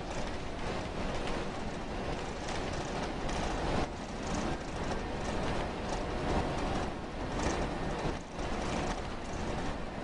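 Steady rumbling noise of a moving vehicle.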